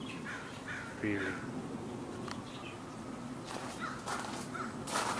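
Birds calling outdoors in a series of short falling calls: three in the first second, then a few more around four seconds in. Footsteps crunch on gravel near the end.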